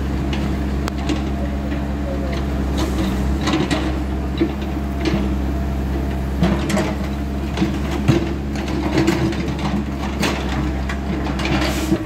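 New Holland backhoe loader's diesel engine running steadily, with scattered scrapes and knocks as the backhoe bucket works loose soil and stones.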